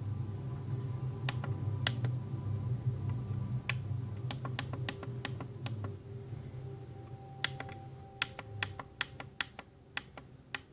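Buttons on a Maxx Digital weather alert radio being pressed during its setup: sharp clicks, some single and several in quick runs, over a low steady hum that fades in the second half.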